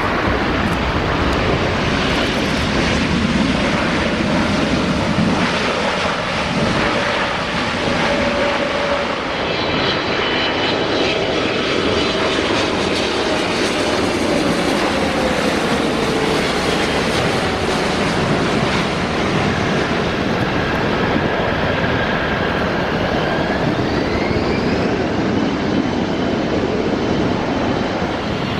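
Boeing 777-300ER's twin GE90 turbofan engines on landing: a loud steady jet roar, with a whine that drops in pitch around the middle as the airliner passes, and a whine that rises in pitch a few seconds before the end.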